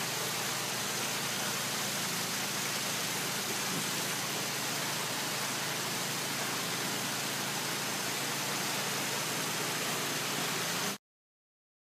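Steady, even hiss with a faint low hum underneath, cutting off suddenly near the end.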